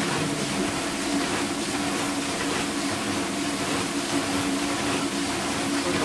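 Vintage KitchenAid Superba KDS-15 dishwasher in its first pre-rinse: water spraying and splashing around the tub and racks over the steady hum of the wash motor. A clear plastic sheet stands in place of the door.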